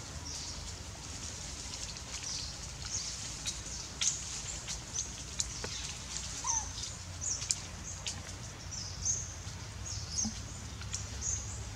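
Short, high-pitched animal chirps, repeated irregularly many times over a steady low rumble, with a few faint clicks.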